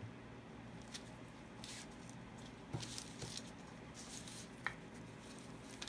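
Faint handling sounds of plastic-gloved hands working wet acrylic paint and ceramic tiles: soft squishing and rustling, with a few light taps.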